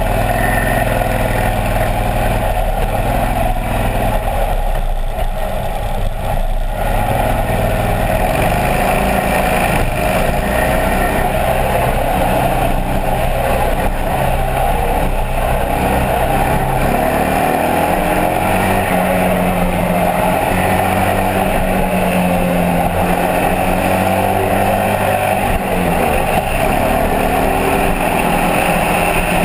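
Harley-Davidson Sportster 1200's V-twin engine running under way, its pitch stepping and gliding up and down several times as the bike changes speed, over a steady rush of wind and road noise.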